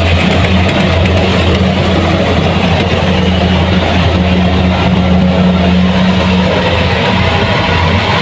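Kubota combine harvester's diesel engine running steadily, with a constant low hum over machine noise.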